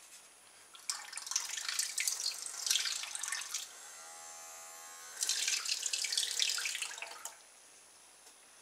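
Small electric toothbrush motor spinning a tiny plastic propeller in a sink of water: splashing and churning, broken in the middle by about a second and a half of steady motor whine as the propeller comes clear of the water. The churning then resumes and stops about seven seconds in.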